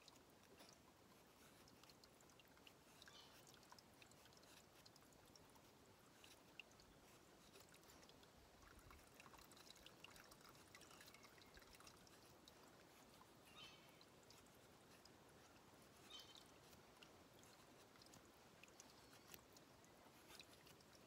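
Faint, steady trickle of a shallow stream, with soft scattered scrapes and ticks of a Fallkniven TK2 knife blade shaving curls off a wooden stick to make a feather stick.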